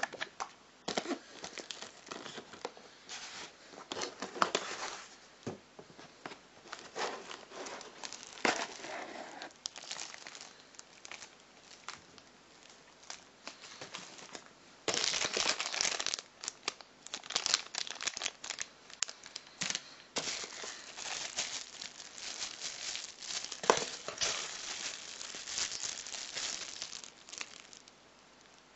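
Plastic bubble-wrap bags of accessories crinkling and rustling as they are handled, with sharp crackles and small knocks against the cardboard box. The crinkling is thickest about halfway through.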